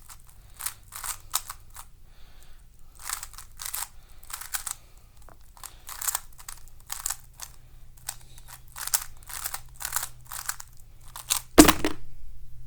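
Stickerless MoYu MF3RS 3x3 speedcube being turned fast during a solve: irregular plastic clacks, one to three a second, and a loud knock near the end.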